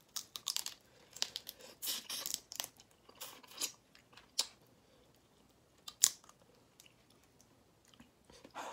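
Someone eating spicy shrimp: wet chewing and smacking mixed with the crack and tear of shell being pulled apart by hand. There is a quick, irregular run of clicks for the first four seconds or so, then a few sparse ones, the sharpest about six seconds in.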